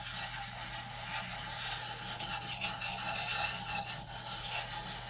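Sharpening stone scraping back and forth over a Gränsfors Bruks axe's edge, a steady rasping grind that works out a small chip in the blade.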